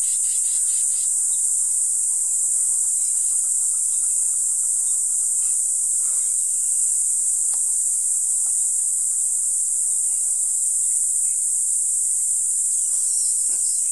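Steady, high-pitched insect chorus, with a few faint clicks.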